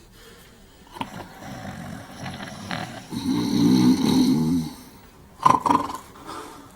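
Two men snoring one after another. The snores come in separate breaths, the longest and loudest about three to four and a half seconds in, then two short sharp snorts.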